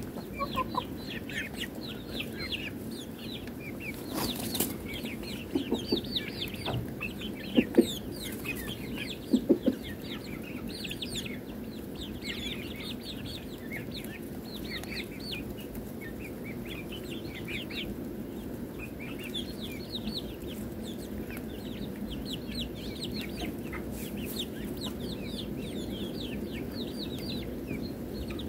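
Chickens clucking softly as they peck and feed, with a few louder clucks in the first ten seconds and short high chirping calls throughout.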